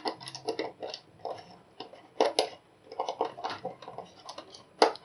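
Irregular small clicks and taps of hands handling electrical wires and tools while wiring a submeter.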